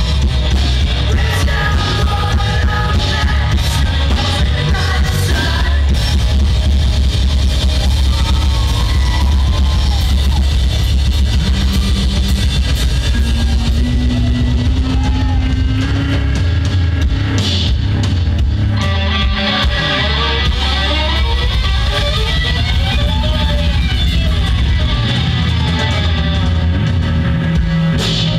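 Rock band playing live: distorted electric guitars, bass and drum kit, with a vocalist singing into a microphone. A bending melody line comes to the fore in the second half.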